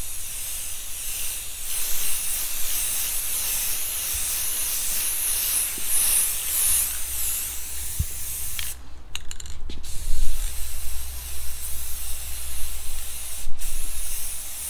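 Aerosol can of clear coat spraying in long, steady hisses, broken by a short pause with a few quick spurts about nine seconds in and a brief stop near the end, as the finish coat goes onto a wooden recurve bow.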